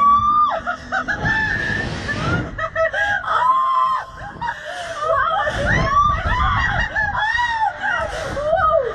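A young woman on a slingshot ride shrieking and laughing in a string of high, rising-and-falling cries, with wind buffeting the microphone.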